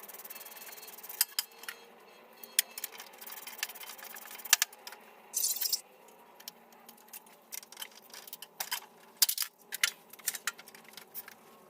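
Irregular sharp clicks and light rattles of hand work on a riding mower's seat and its wiring as the seat sensor connector is unplugged, with a short hissing scrape about five seconds in.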